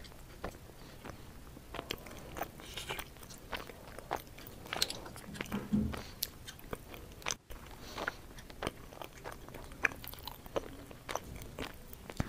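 Someone eating steamed mussels: scattered small clicks of the shells being handled, mixed with chewing.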